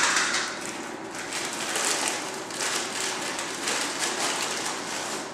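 Capsules rattling inside a plastic supplement bottle as it is shaken, a dense irregular patter of small clicks that comes in uneven clusters.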